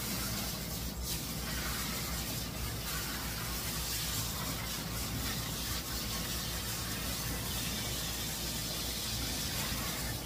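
Water from a hand-held hose spray nozzle hissing steadily onto a wet dog's coat as the shampoo is rinsed off.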